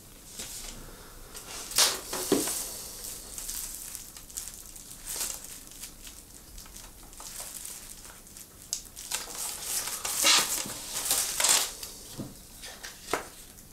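An album's packaging being unwrapped by hand: intermittent crinkling and tearing rustles, loudest about two seconds in and again from about ten to twelve seconds in, with a few short clicks near the end.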